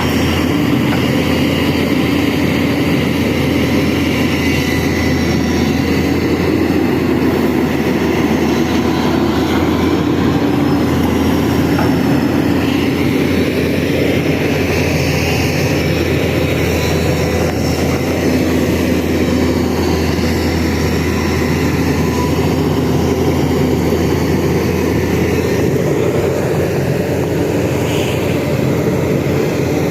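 Heavy excavator engine running steadily at work, a loud continuous low drone without let-up.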